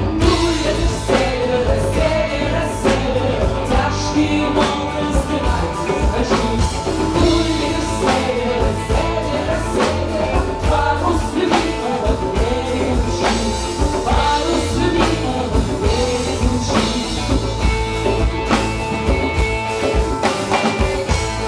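Folk-rock band playing live: female vocals singing over electric guitars, bass and a drum kit keeping a steady beat.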